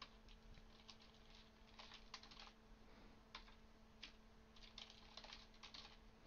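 Faint typing on a computer keyboard: scattered keystrokes, singly and in quick little runs, as a password is entered twice. A faint steady hum runs underneath.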